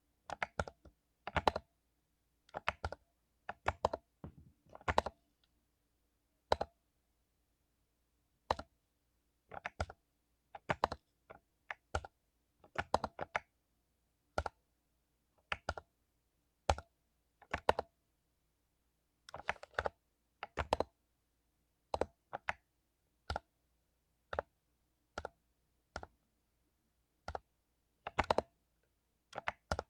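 Mechanical keyboard with lubed Cherry MX Silver linear switches being typed on slowly and unevenly: single keystrokes and short clusters of two or three, with pauses between them.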